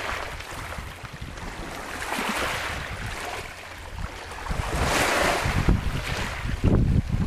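Small Baltic Sea waves breaking and washing up a pebble beach, the hiss of the surge swelling about two seconds in and again about five seconds in. Gusts of wind buffet the microphone with a low rumble.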